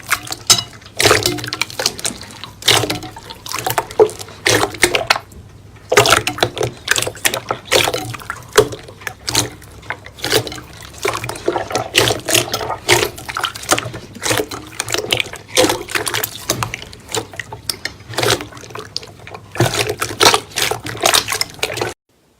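Slime being squished and poked by hand: an irregular run of wet clicks and pops, several a second, that cuts off suddenly near the end.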